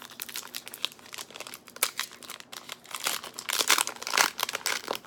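Foil wrapper of a Pokémon TCG Evolutions booster pack crinkling as it is opened by hand, loudest a little past halfway.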